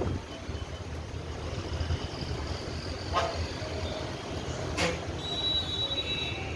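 Road traffic on a busy wet road: a steady rumble of passing vehicles, broken by two sharp knocks about three and five seconds in. A high, steady tone sounds for about a second near the end.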